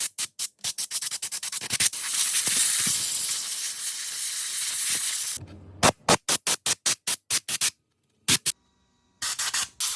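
Rapid, evenly spaced clicking, then a steady hiss for about three and a half seconds, then more quick clicking broken by two short silences.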